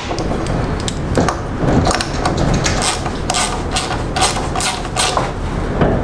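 A small hand ratchet clicking as it turns a fitting down inside the carburettor's float-bowl area. The clicks come in quick, uneven runs, thickest in the second half.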